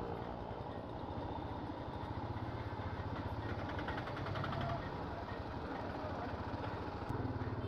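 Royal Enfield Himalayan's single-cylinder engine running steadily at low speed, a continuous low pulsing.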